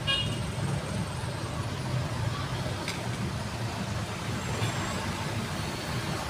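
Steady low rumble of background road traffic, with a single light click about three seconds in.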